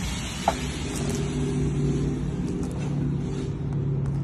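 DeWalt miter saw running steadily as its blade cuts down through a brick, with one short click about half a second in.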